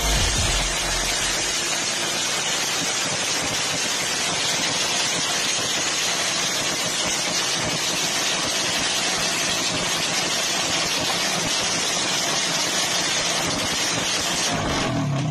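Modified Honda TMX 125 motorcycle engine running steadily on its stand, heard close as a dense, hissy sound with little bass.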